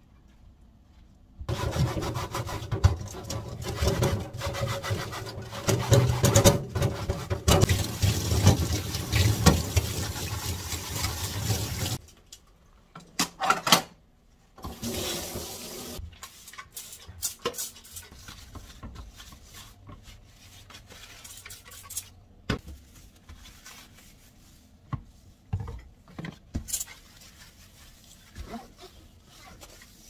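Water running hard from a kitchen tap for about ten seconds, then cut off abruptly. Afterwards, scattered clinks and knocks of dishes and pots going into a drawer dishwasher, and near the end a cloth rubbing over an induction cooktop.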